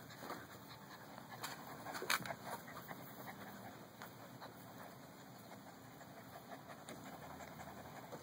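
Bernese mountain dog puppies moving about on grass: faint rustling and light scattered clicks, with a louder cluster of sharp knocks about two seconds in, over a faint steady low hum.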